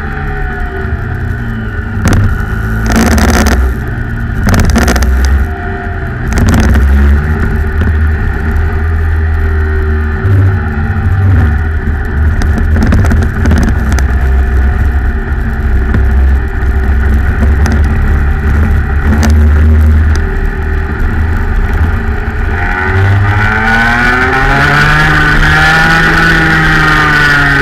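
Rotax Max 125cc two-stroke kart engine heard from onboard at racing speed, its note rising and falling through the corners. Near the end the engine climbs steadily in pitch on a straight, then falls away as the kart slows.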